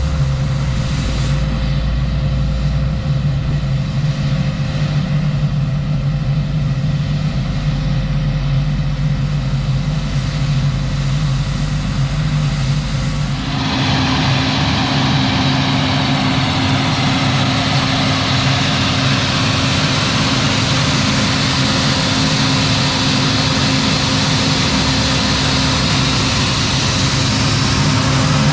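Large diesel farm machinery running steadily, with a low engine hum. About halfway through the sound changes abruptly to a different, brighter machine sound with a higher steady tone.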